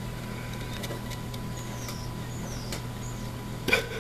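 Three short high-pitched chirps falling in pitch, over a steady low hum, with a sharp click near the end.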